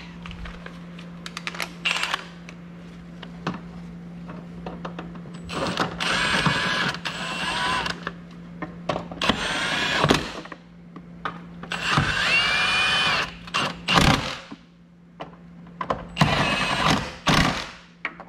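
Cordless power tool on a socket extension running in four short bursts of a couple of seconds each, one with a whine that rises and then holds, as it drives the battery tray bolts back in. A few sharp knocks of tool and metal fall between the bursts.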